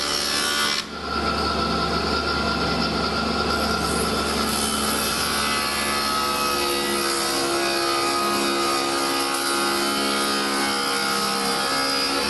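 Spindle moulder running and cutting a profile into the edge of a wooden workpiece fed by hand against its spinning cutter. The sound is steady, with a short dip about a second in.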